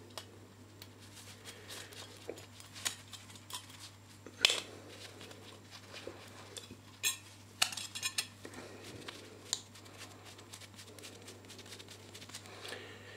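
Small metal parts of an earth clamp, its screw, locking nut and metal strap, clinking and clicking in gloved hands as the nut is threaded back onto the screw. Irregular light clicks, the loudest about four and a half seconds in and a quick run of them around seven to eight seconds.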